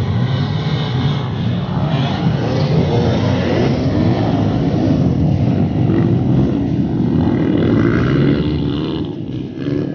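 A pack of enduro dirt-bike engines revving and running together at full throttle as the bikes pull away, a dense, continuous engine drone that dips briefly near the end.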